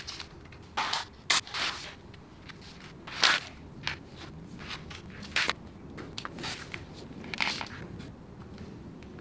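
Small plastic spring clamps snapping and clicking as a thin wooden batten is clamped against a row of nails on a plywood sheet, with scrapes of the batten and hands on the plywood. About a dozen short, sharp clicks and scuffs come at irregular moments, the loudest a little over a second in and about three seconds in.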